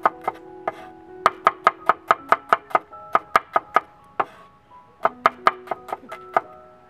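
Knife chopping red onion on a wooden cutting board: quick runs of sharp knocks, about five or six a second, with brief pauses between runs. Plucked-string background music plays underneath.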